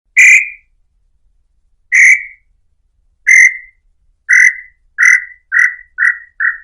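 Tataupa tinamou (inhambu-chintã) singing: a series of clear whistled notes that come ever faster and grow shorter, each a little lower in pitch than the last, with about eight notes in the run.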